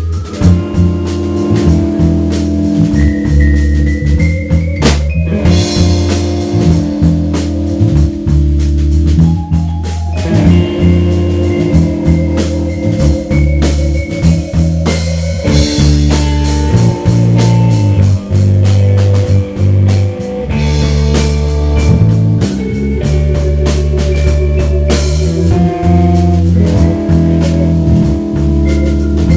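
Live rock band playing loudly: distorted electric guitar, electric bass and a Gretsch drum kit, with steady drum hits under held guitar and bass notes.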